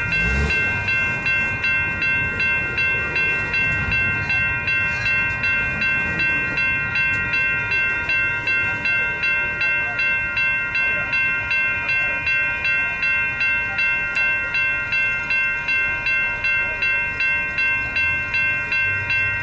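Railroad grade-crossing warning bell ringing steadily in an even, repeating rhythm of nearly two strokes a second, over the low rumble of freight cars rolling past on street-running track.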